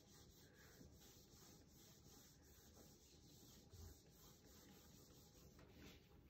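Near silence: faint room tone with light rubbing on a whiteboard.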